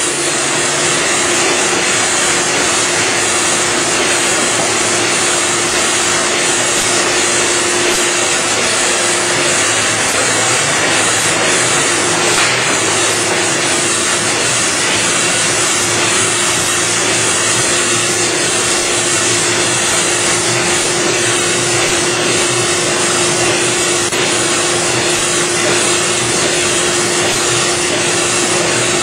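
Steady whirring machine noise of a running dry offset cup and pail printing machine, with a steady hum and a strong high hiss.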